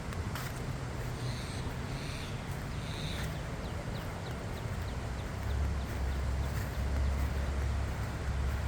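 Birds chirping, with a quick run of short high calls a few seconds in, over a steady hiss and a low rumble that grows louder about two thirds of the way through.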